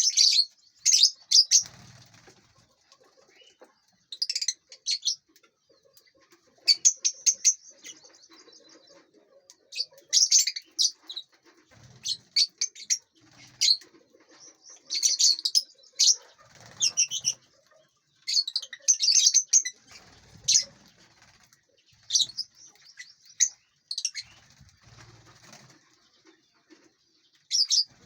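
Lovebirds chirping in short, shrill, rapid bursts every second or two, with wings flapping now and then.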